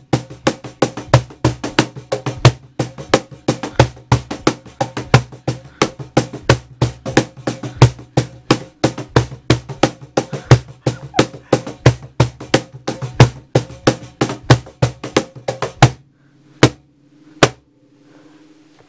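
Steel tweezers clicking shut again and again as beard stubble is plucked, several clicks a second in a quick, slightly uneven rhythm. The clicks stop about sixteen seconds in, with two last ones after. Soft background music with a low steady tone runs underneath.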